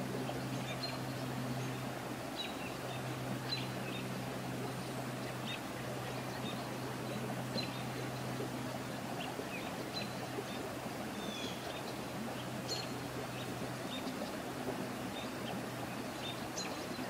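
Outdoor ambience: scattered short bird chirps, some sliding down in pitch, over a steady low hum and hiss.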